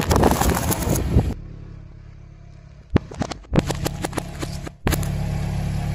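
A car tyre crushing a plastic rainbow spring toy, with dense crackling for about the first second. Then a steady engine hum, and from about three seconds in a run of sharp pops and splats as the tyre bursts plastic tubes of jelly ice pops.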